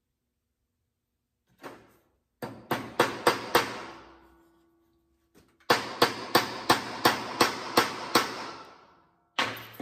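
Hammer blows driving a metal wedge into the top of a new wooden handle set in a body hammer's head. There is one light tap, then a run of five quick strikes, a pause, and a run of eight at about three a second, then a last strike, each with a short metallic ring.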